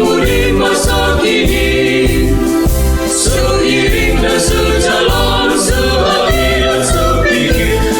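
Mixed student choir singing in several parts, with a steady low beat pulsing underneath.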